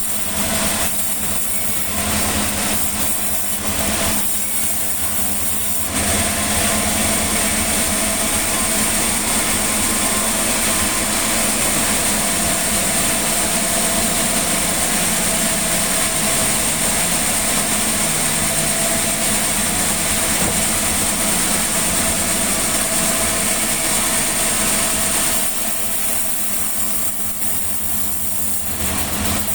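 Sawmill machinery running with a steady engine hum. From about six seconds in until a few seconds before the end it grows louder and noisier, then drops back to the plainer hum.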